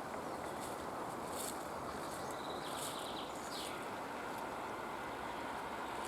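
Wild songbirds calling in woodland: short, high chirps repeated every second or so, with a brief trill and a falling note about halfway through, over a steady background hiss.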